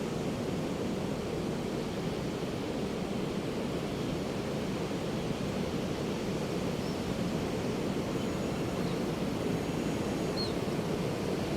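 Pacific Ocean surf: a steady, continuous wash and rumble of waves on a beach with no single crest standing out. A few faint, short high bird calls come through in the second half.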